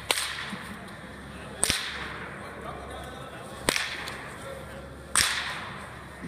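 Sharp cracks of a baseball bat hitting balls in an indoor batting cage facility, four of them about one and a half to two seconds apart, each trailing off in the hall's echo.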